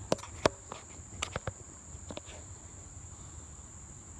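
Insects trilling steadily at one high pitch, with about five sharp clicks in the first two seconds that stand out as the loudest sounds.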